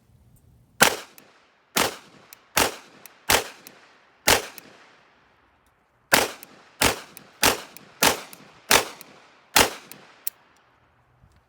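Eleven single 9mm gunshots from a Cobray M-11/9 fired semi-automatically, a little under a second apart, in a string of five and a string of six with a pause of nearly two seconds between. Each shot is followed by a trailing echo.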